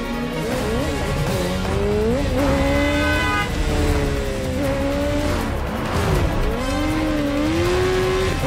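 Sport motorcycles racing at high speed, engines revving up and falling back again and again through gear changes as the bikes weave through traffic, over film score music.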